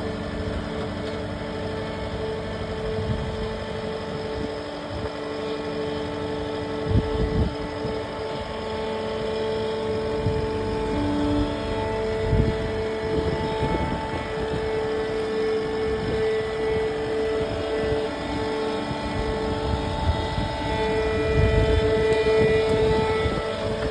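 Skid steer engine running steadily with a constant hum, with a few low thumps and knocks as the machine moves; it is loudest near the end.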